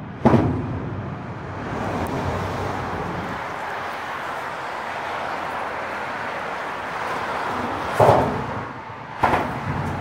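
Car tyres thumping over a road bridge's expansion joint, heard from beneath the steel girder deck: one sharp thump just after the start and two more near the end, about a second apart, with steady traffic noise between them.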